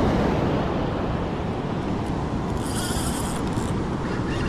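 Surf breaking on a steep beach, a steady wash with wind on the microphone. A brief high hiss comes a little past halfway.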